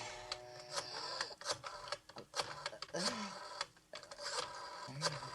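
A rotary telephone being dialled: a run of sharp clicks and rattles at uneven spacing as the dial turns and springs back.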